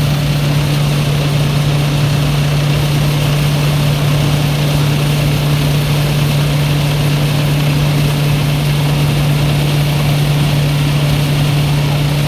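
Rice-threshing machine running steadily under load, a loud constant engine drone with a strong steady hum. The uploader says it sounds as if it is breaking down, though it keeps running.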